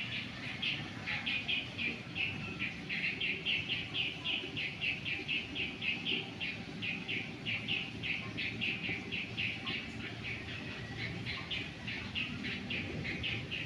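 A bird chirping in a long, steady run of short high notes, about four a second, without a break.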